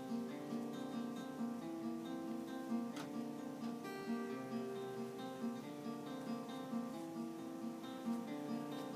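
Acoustic guitar music, plucked and strummed in a steady repeating pattern.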